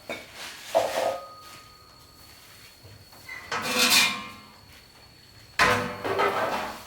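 Household objects being handled: a few separate scraping clatters, the loudest starting sharply about five and a half seconds in.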